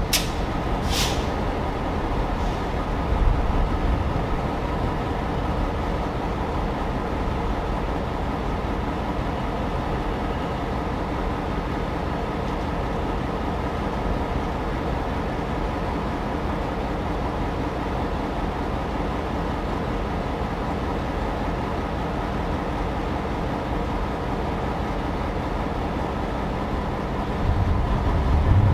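Diesel locomotive engine running steadily with a low, even hum. There is a short hiss of air about a second in, and the low rumble grows louder near the end.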